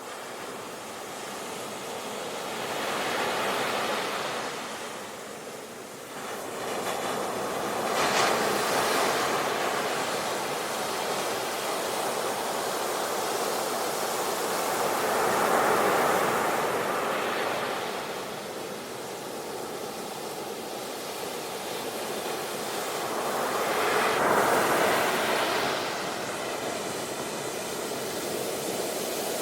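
Ocean waves breaking and washing on a shore, a steady surf that swells into louder surges every several seconds.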